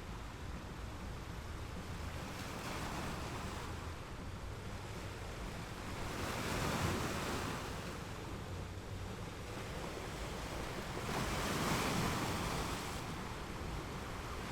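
Ocean waves breaking and washing up a beach, the surf swelling three times at intervals of about four to five seconds over a steady hiss of water, with a low rumble of wind on the microphone.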